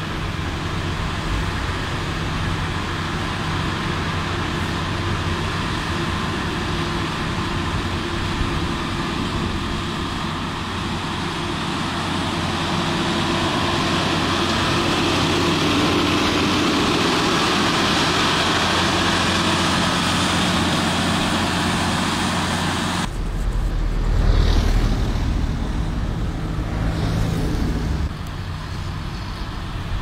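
Diesel engines of snow-clearing machinery running, with road traffic; the sound grows louder through the middle, then changes abruptly about two-thirds of the way through to a deeper rumble.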